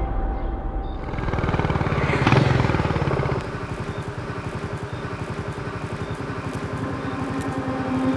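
Royal Enfield motorcycle engine riding up, swelling to its loudest a little over two seconds in, then settling into a low, even beat.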